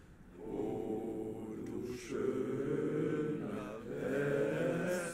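A group of men's voices singing slowly together in unison, in long held phrases that break off about two seconds in and again near the end.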